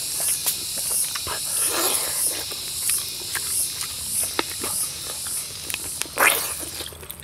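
A high insect chirp pulsing steadily, a little under two pulses a second. Wet chewing and lip-smacking clicks from eating rice and pork by hand sound over it, loudest about six seconds in. The chirping stops near the end.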